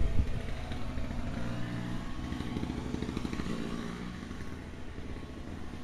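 An engine running steadily with a low hum and some clatter, slowly fading.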